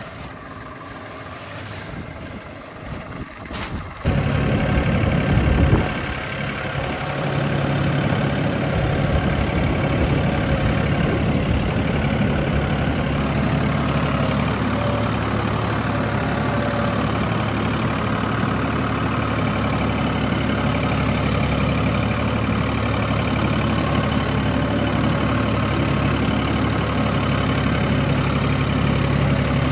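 Wind buffeting the microphone for the first few seconds, then an engine comes in abruptly about four seconds in and runs at a steady idle.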